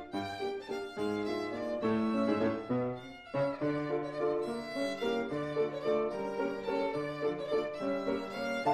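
Instrumental music, a violin playing the melody over lower accompanying notes, with a brief break about three seconds in.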